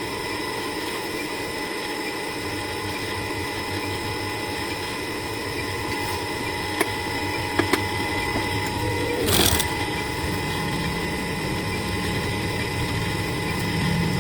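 Sewing machine running steadily as it stitches a seam, with a few sharp clicks around the middle and a short burst of noise just after.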